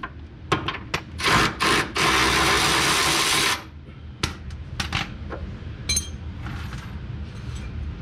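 Wrenches and tools on a car's suspension bolts: several sharp clicks, then a steady noise for about a second and a half. After that come a few more clicks and, about six seconds in, a single metal clink that rings briefly.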